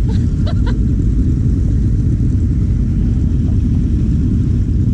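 Four-cylinder engine running steadily on the move, a constant low rumble.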